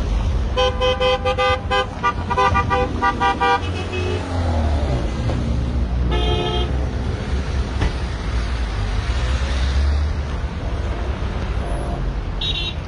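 Car horns honking in a passing column of cars: a long blast about half a second in, a quick run of short beeps around two to three seconds, another blast at about six seconds and a short one near the end, over a steady low rumble of traffic.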